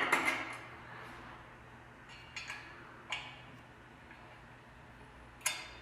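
A 5 mm Allen key working the screws on a sewing table's metal leg stay, making a few sharp metallic clicks a second or more apart, with a stronger click near the end.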